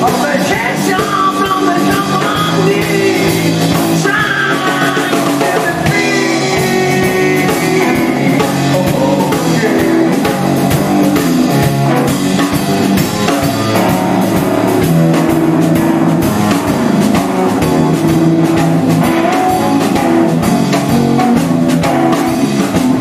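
Rock music played by a band, with a drum kit and guitars.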